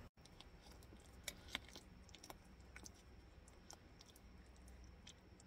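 Faint, scattered clicks of a metal utensil against a glass baking dish as lasagna is cut and scooped, a few of them sharper in the first half.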